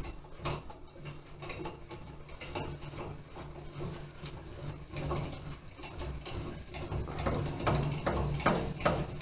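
Blade-tilt mechanism of a Grizzly G0771 table saw being cranked by its handwheel, with repeated clicking and light metallic rattling from the gearing and a low hum pulsing in and out, busier in the second half. The tilt shaft is newly replaced and the tilting runs smoothly.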